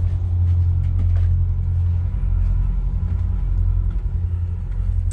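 Detroit Diesel engines of a large Hatteras motor yacht idling at the dock before departure: a steady low rumble through the hull. A few faint knocks sound over it as someone climbs the metal-railed ladder to the flybridge.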